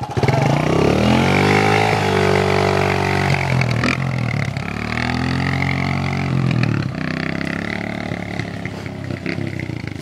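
Kawasaki KLX dirt bike's engine revving hard as it accelerates: pitch climbs for about two seconds and holds, drops back, then climbs again in a second pull before easing off about seven seconds in.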